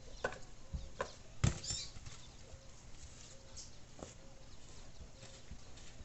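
A few sharp knocks and thumps of firewood being handled, the loudest about one and a half seconds in, with a faint chirp repeating about twice a second behind them.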